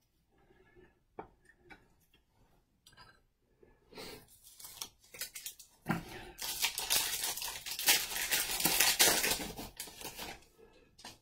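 Foil pack of baseball cards being torn open, its wrapper crackling and crinkling for several seconds. A few soft clicks and rustles come first.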